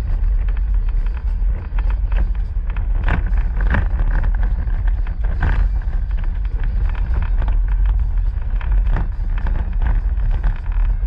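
A vehicle driving on an unpaved dirt road, heard from inside the cabin: a steady deep rumble of engine and tyres, with frequent small knocks and rattles from the rough surface, a few louder ones about three to six seconds in.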